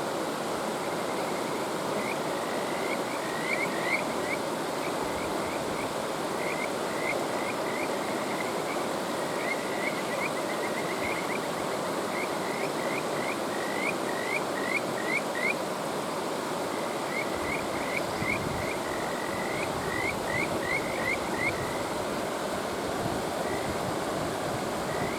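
Kajika frogs (Buergeria buergeri) calling over the steady rush of a mountain stream. The calls come as runs of short, rising, whistle-like notes, several notes in a burst, with pauses between the bursts.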